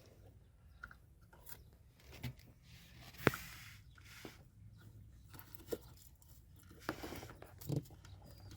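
Scattered small clicks and scrapes of a Phillips screwdriver and fingers working at a small screw on the back of a truck's accelerator pedal, the sharpest click about three seconds in.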